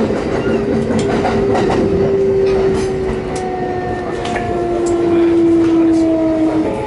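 Kintetsu 9820-series train's Mitsubishi IGBT VVVF inverter and traction motors giving a whine that slowly falls in pitch as the train slows into a station, with wheel clacks over rail joints. The whine cuts off near the end.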